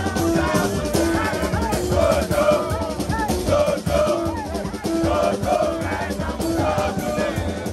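Haitian rara music: drums and horns with group singing, repeating short phrases over a steady beat.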